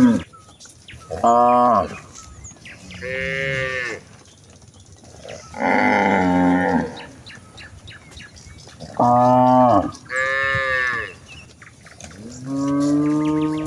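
A herd of cattle mooing again and again: about six drawn-out moos a second or so long with short pauses between, some deep and some higher-pitched.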